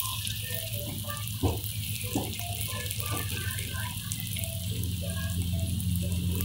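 Spring rolls sizzling as they fry in hot oil in a steel wok: a steady hiss with small scattered pops over a low hum. Metal tongs knock twice against the wok about one and a half and two seconds in.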